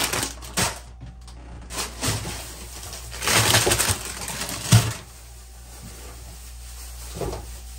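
Plastic produce bags crinkling and rustling as they are handled, in several bursts, with a sharp thump about two-thirds of the way through and a softer knock near the end.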